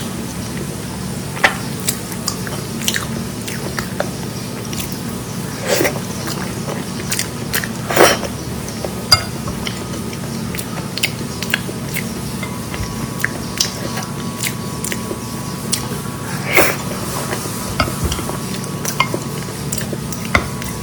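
Close-miked eating: chewing and biting, with many small crisp clicks and a few louder wet smacks about 6, 8 and 16 seconds in, over a steady low background hum.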